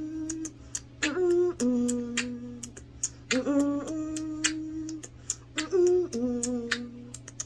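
A woman humming a tune in four short phrases, each rising into a held note, with sharp clicks scattered throughout.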